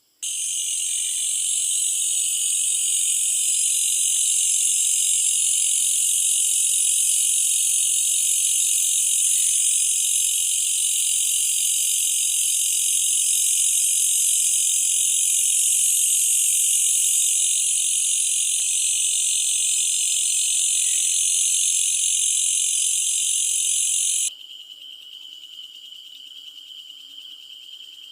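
Malaysian bush cricket (katydid) calling: a loud, continuous, high-pitched buzz that stops abruptly about 24 seconds in, leaving a much quieter, thinner high trill.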